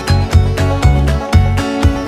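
Background music with a steady beat, strummed guitar and a prominent bass line.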